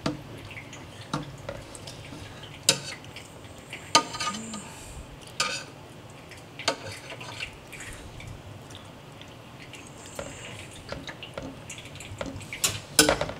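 Sharp clicks and knocks from feeding tongs against a glass tank, with small wet splashes as an African bullfrog lunges at a superworm in shallow water. The knocks come every second or so, and several come close together near the end.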